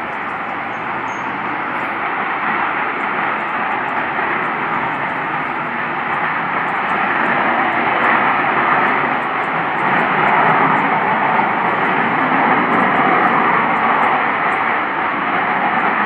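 A really loud, steady rushing noise from the open sky that sounds like jets flying overhead, though no aircraft is in view: one of the unexplained 'strange sky sounds'. It slowly grows louder.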